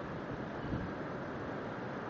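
Steady hiss of light blizzard wind blowing snow, with a brief slight gust a little under a second in.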